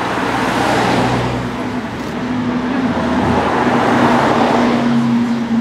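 Two cars passing slowly on a street: a Mercedes-Benz SL goes by first, its sound swelling and fading in the first couple of seconds, then a Lamborghini Aventador's V12 comes closer, a steady low engine note growing stronger toward the end.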